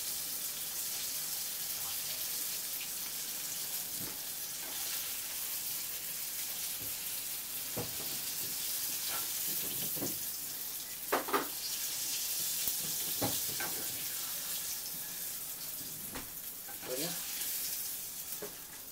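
Oil sizzling steadily as stuffed brinjals fry in a small pan. A steel ladle clinks against the pan now and then as pieces are scooped out.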